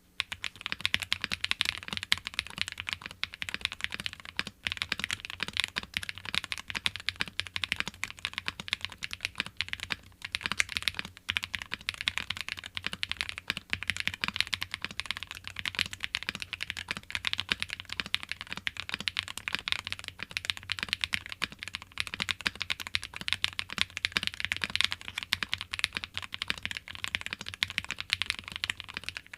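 Continuous fast typing on a gasket-mounted Think6.5v2 custom mechanical keyboard with lubed Frankenswitches (Lavender housing, Panghu v6 stem) on a PE plate, GMK keycaps and Durock v2 stabilizers. Keystrokes come in rapid clicky clacks with a slightly poppy, light character, starting about half a second in, with brief pauses around a third of the way in.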